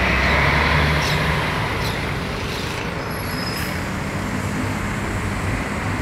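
Road traffic with an articulated city bus's engine running as it pulls away, loudest in the first second or so, then settling into a steady rumble of passing cars.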